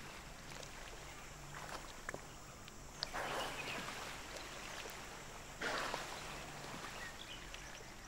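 Asian elephant wading through a shallow muddy pool, water sloshing and splashing around its legs, with two louder splashing spells starting about three seconds and five and a half seconds in.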